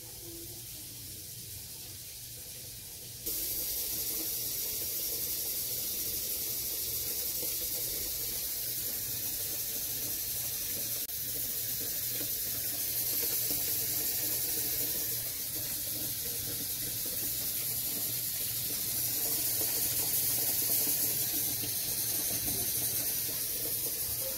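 Steady hissing noise with a faint low hum underneath; it steps louder about three seconds in and then holds even.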